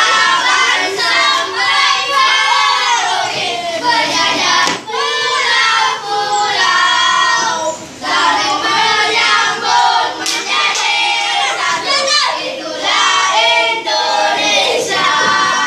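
A group of children singing together, with little pause.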